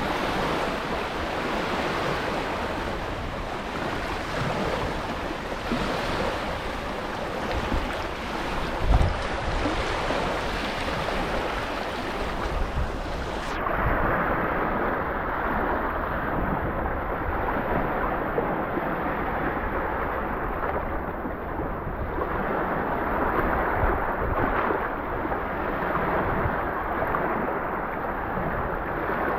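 Sea waves washing in and out, a continuous rush of surf. A little before halfway the sound abruptly turns duller as its high hiss drops away.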